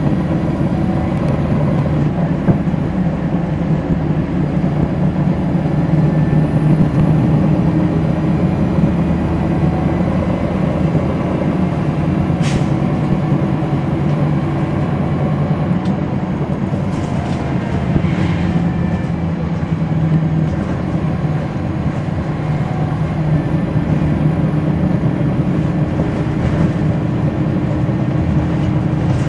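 Cummins ISL9 diesel engine of a NABI 416.15 transit bus running, heard from the rear seats inside the bus, its note steady with small shifts in pitch. A sharp click sounds about twelve seconds in, with a few lighter clicks a few seconds later.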